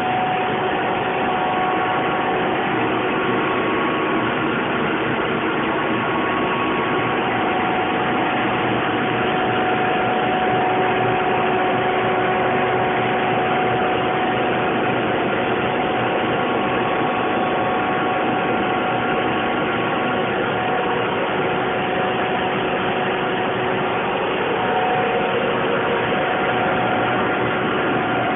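Rotrex turbo compressor running on steam in an industrial heat-pump plant: a steady machine drone with several high, steady whining tones on top. A further tone comes in near the end.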